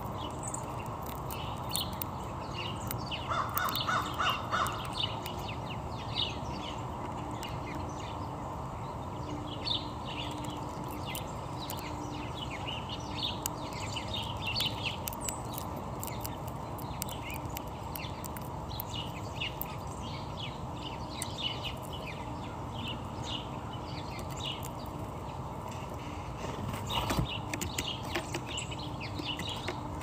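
Small songbirds chirping on and off, with a crow cawing about five times in quick succession a few seconds in, over steady low background noise.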